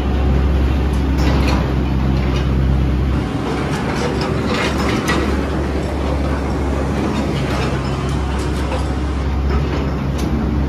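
Heavy construction machinery running with a steady low engine hum, with scattered clanks and knocks, the most around four to five seconds in.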